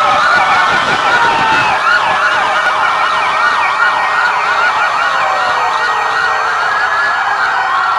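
Several rescue-vehicle sirens sounding together, fast repeating yelps overlapping with slower rising and falling wails. They are switched on in emergency mode as a send-off.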